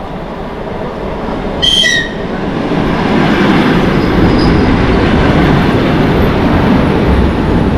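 Electric commuter train pulling into the station, its rumble building to a loud, steady level from about two and a half seconds in. A brief high whistle sounds about two seconds in.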